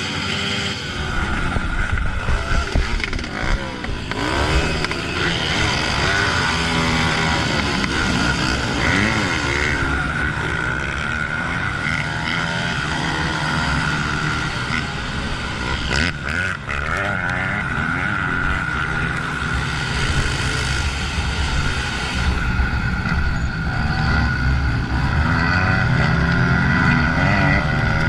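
Honda CRF125F's single-cylinder four-stroke engine being ridden off-road, its revs rising and falling over and over.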